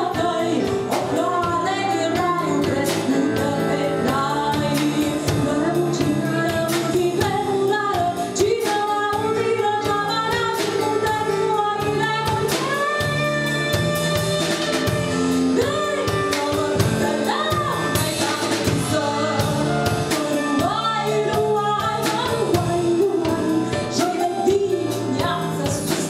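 A woman singing a folk song into a microphone, with a live band of clarinet, keyboard, drum kit and a plucked string instrument.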